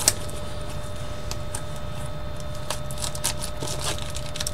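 Small scattered clicks and taps of baseball-card mini boxes and packs being handled and opened, over a steady faint hum.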